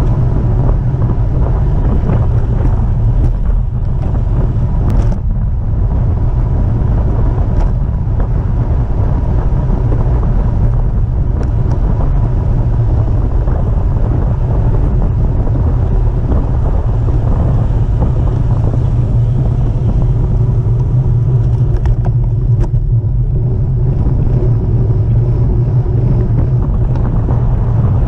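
Steady wind buffeting the microphone of a camera on a moving road bike, a loud low rumble mixed with road noise, with a few faint clicks.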